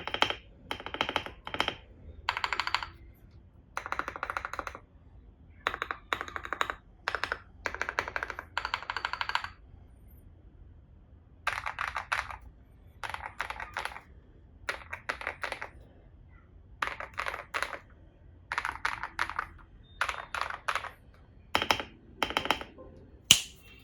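Typing on a custom LMK81 mechanical keyboard with lubed KTT Kang White V3 linear switches, Akko ASA profile keycaps and a three-layer tape mod. It comes in runs of rapid keystrokes about a second long with short pauses between them, a longer pause about ten seconds in, and one sharper, louder clack near the end.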